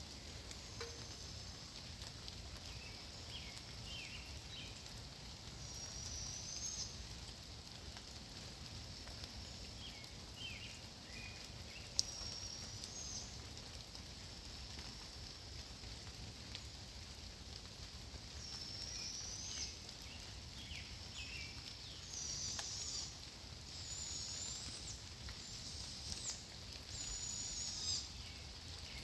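Barred owlets giving hoarse, hissing screeches, repeated every few seconds and more often near the end: the begging calls of hungry young owls asking their mother to feed them. A single sharp click comes about twelve seconds in.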